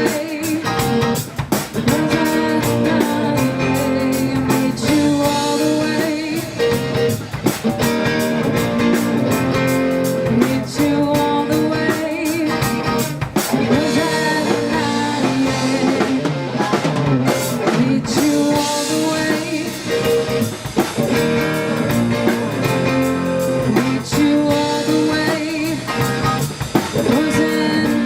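A live rock band playing a song with electric guitar, drum kit and singing.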